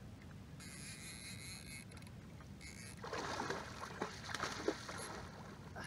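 Water lapping and splashing against a kayak's hull, with small irregular splashes starting about three seconds in over a faint steady hiss.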